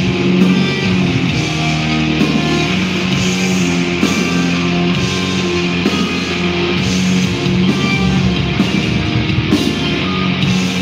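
Live black metal band playing at full volume: distorted electric guitars holding sustained chords over drums, with no breaks.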